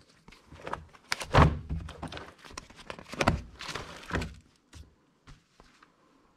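A run of knocks and thuds indoors, with the heaviest thump about a second and a half in and another just after three seconds, and a short scrape near four seconds. A few faint clicks follow before it dies away.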